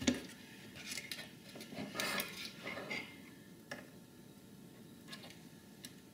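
Light, scattered clicks and taps of hands and a soldering iron working at a new capacitor on a Power Mac G4 motherboard, with one sharper click at the start.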